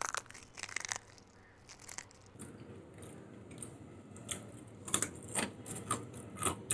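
A crisp homemade fortune cookie cracking and being chewed. A few small sharp snaps come in the first second, then a run of crunches as it is eaten in the second half.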